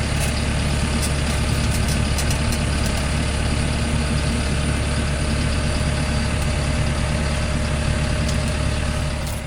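A vehicle engine idling steadily, a constant low rumble.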